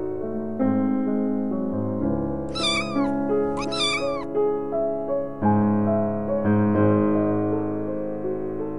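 A young kitten meows twice about a second apart, each call rising then falling in pitch, meows that are put down to the pain in its injured tail. Soft piano music plays underneath.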